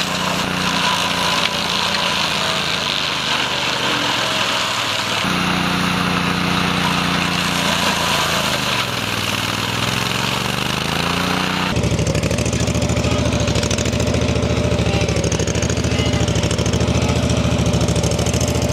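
Honda iGXV800 V-twin engine of a Stella URS100 tracked rotary brush mower running under load while cutting gorse on a slope. The engine pitch dips and recovers about nine seconds in as the blade bites into the gorse. The tone changes abruptly about five and twelve seconds in.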